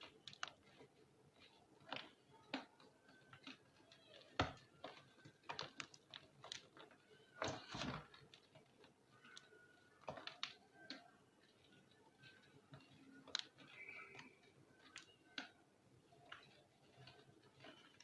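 Reformed block of yellow gym chalk being crushed, giving irregular dry crunches and crumbles. The sharpest crunch comes about four seconds in, and a longer crumbling run follows near the eight-second mark.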